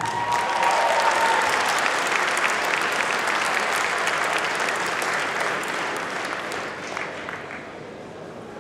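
Audience applauding, a dense patter of many hands clapping that is loudest at first and dies away over the last few seconds. A single held tone, the tail of the song's last note, fades out in the first second.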